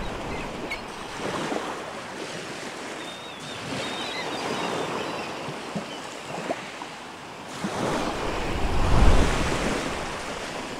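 Ocean waves breaking on the shore, with wind on the microphone; the surf swells louder a few times, most strongly near the end.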